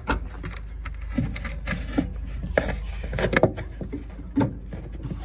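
Irregular clicks and knocks over a low steady rumble, from hands working the hood latch and lifting the hood of a 1985 Cadillac Fleetwood limousine while the phone's microphone is handled. The loudest knocks come about three and a half and four and a half seconds in.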